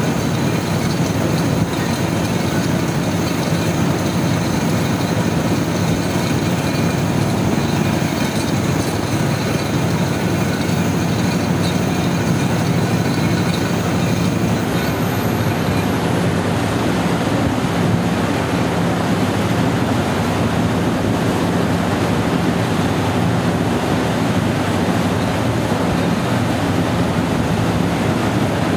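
Perkins diesel engine of an FG Wilson generator set running steadily under a constant low engine note.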